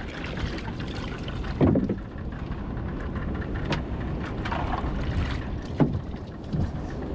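Steady wind and sea noise aboard a small open fishing boat, with a few brief splashes and knocks as live bait fish are scooped by hand out of a tub of seawater.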